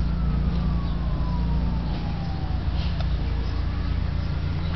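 A siren wailing: a single tone that glides slowly down in pitch over the first three seconds or so, over a steady low rumble.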